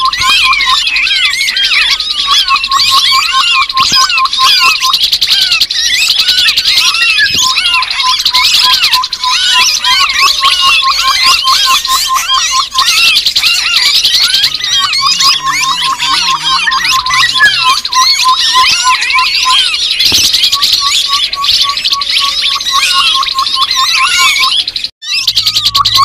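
Lure recording of grey-headed babbler calls, a dense, loud chatter of birds. Runs of quick, evenly spaced notes at one pitch, each lasting a couple of seconds, repeat over a thick layer of higher rising-and-falling chirps. The sound cuts out briefly near the end.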